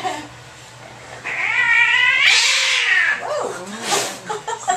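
Angry domestic cat, restrained for handling, gives a loud wavering yowl about a second in that breaks into a harsh hiss, followed by quieter growling and a short spit near the end.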